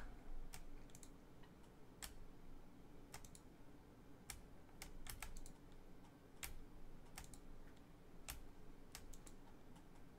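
Faint, irregular clicking of a computer mouse and keyboard, a dozen or more separate clicks, as a web randomizer is rerun.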